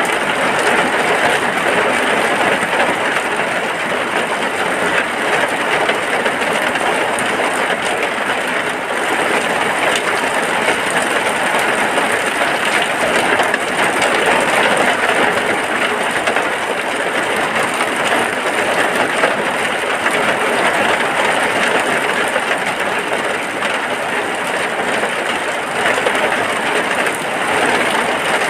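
Steady rain falling, heard from inside a hut, an even unbroken hiss.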